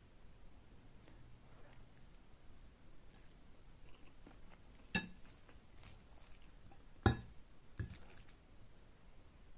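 Close-miked eating of Korean noodles: faint chewing, broken by three sharp clinks of a utensil against a dish, about five, seven and nearly eight seconds in, the second the loudest.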